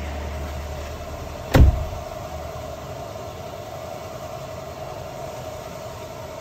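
Steady hum inside a parked Toyota Prius's cabin, with one sharp knock about a second and a half in.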